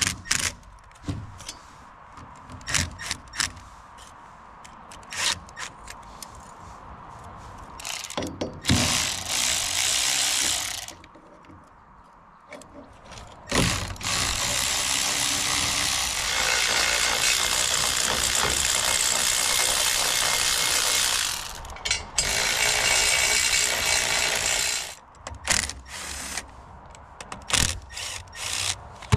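Cordless electric ratchet running in three bursts, the longest about eight seconds, spinning out bolts to take apart a winch motor. Clicks and metal clinks from tools and parts being handled come in between.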